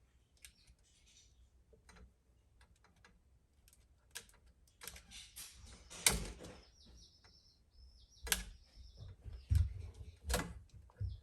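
Flathead screwdriver and wire clicking and scraping against an electrical outlet as the wire is pushed into place. Faint ticks at first, then a run of sharp clicks and knocks in the second half.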